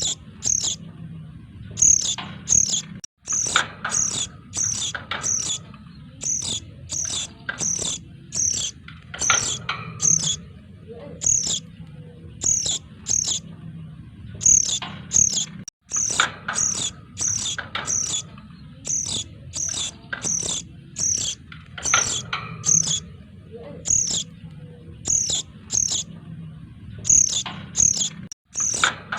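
Noisy calls of young sogon birds played as a bird-trapping lure: rapid high chirps, about two a second, over lower calls and a steady low hum. The same short stretch repeats, with a brief dropout about every twelve and a half seconds.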